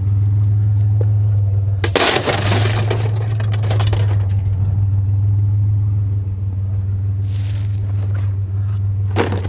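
Truck engine idling steadily. About two seconds in, a loud clattering crash of scrap metal being tossed into the truck lasts a couple of seconds, and a single sharp knock follows near the end.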